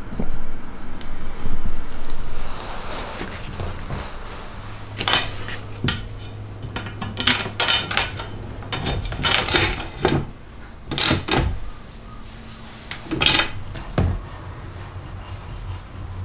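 A threaded insert being screwed into a plywood hole with a hex key. Then a run of sharp metal clinks and knocks as bolts, tools and a fence are handled against a circular saw's steel base plate.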